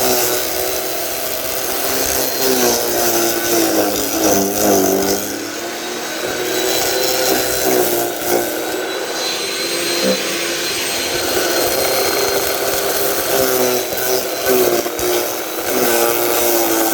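Landworks electric wood chipper running and chipping branches, its motor's pitch dipping briefly several times as the wood loads it.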